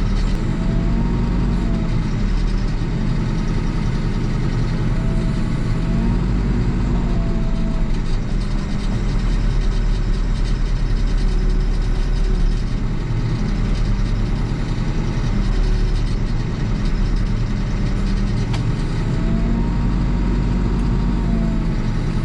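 Diesel engine of a HEPCO HLB95B backhoe loader running steadily, heard from inside the cab. Its note swells up and back down a few times as the backhoe arm digs.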